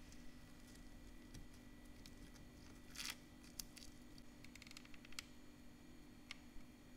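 Near silence over a low steady hum, with faint handling noises from hands working small craft pieces: a brief crackle about three seconds in, a quick run of tiny ticks around five seconds, and a single click near the end.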